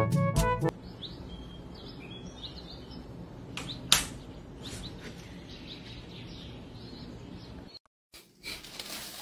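Small birds chirping faintly over a steady background hiss, with one sharp click about four seconds in. A short brass music phrase ends right at the start.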